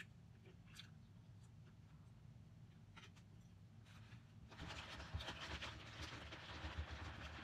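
Quiet handling of takeout tableware: a few faint clicks of a plastic spoon in a paperboard box, then scratchy rustling and scraping from about halfway through.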